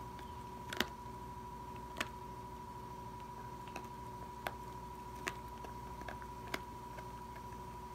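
A dog gnawing raw venison ribs: scattered sharp crunches and clicks of teeth on bone, irregular, about one a second. A faint steady high tone runs underneath.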